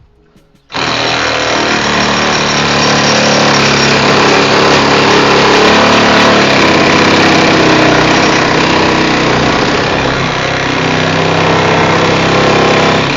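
Milwaukee M12 Hackzall 12-volt one-handed reciprocating saw with a brushed motor, switched on suddenly about a second in and then running continuously at full speed as its blade saws through material.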